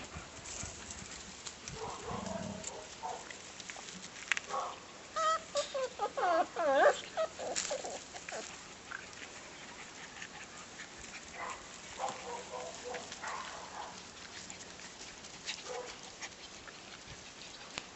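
Bernese Mountain Dog puppies yipping and whining in rough play, with a quick run of high, bending squeals in the middle and scattered short rustles.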